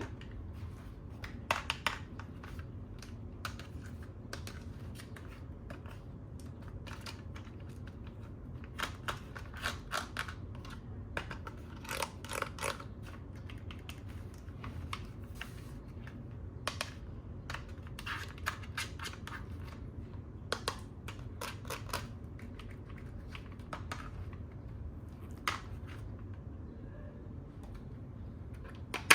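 Hands unpacking toys: irregular light clicks and short crinkling bursts of plastic and cardboard packaging being handled, over a low steady hum.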